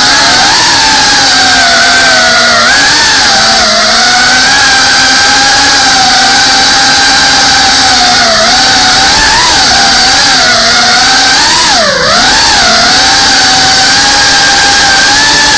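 FPV drone's brushless motors and propellers whining, picked up by the camera on board the drone. The pitch wavers up and down with the throttle and dips sharply for a moment about twelve seconds in.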